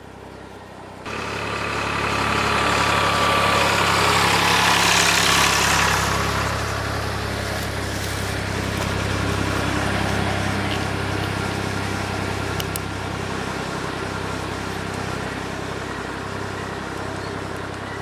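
Massey Ferguson 231 tractor's three-cylinder diesel engine running steadily, coming in suddenly about a second in, loudest for a few seconds and then easing off a little.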